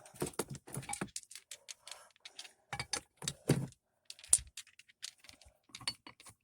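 Purchased hardware being handled, with nuts shifting and rattling: a run of irregular quick clicks and rattles.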